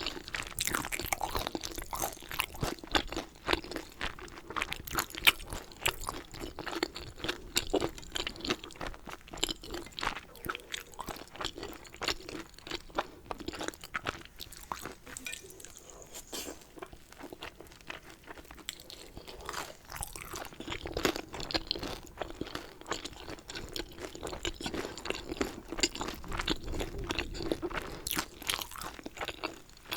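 Close-miked chewing of food: a dense run of small mouth clicks and crackles, easing off for a few seconds around the middle before picking up again.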